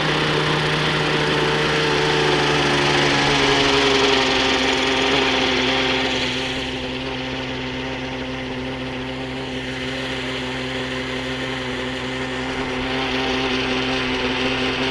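RC helicopter engine running, its pitch dropping over the first few seconds and then holding steady. The engine is running really rich.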